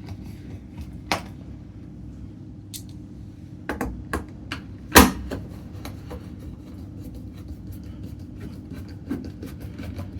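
Irregular clicks and knocks as a washing machine's cover is handled and fitted back in place, the loudest knock about halfway through, over a steady low hum.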